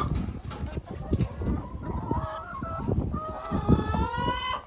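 A flock of laying hens clucking and calling, with one long drawn-out call near the end, over rustling and knocking.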